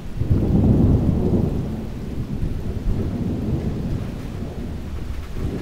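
Thunder rumbling: a low rumble that swells at the start, is loudest in the first second or so, then slowly fades.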